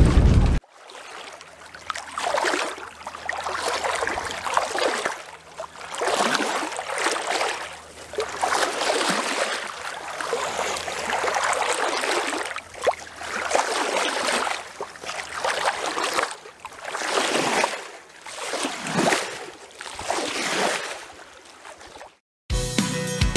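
Foaming water rushing and splashing in repeated surges, each swelling and fading over a second or two. It stops suddenly near the end, and an outro music jingle starts just after.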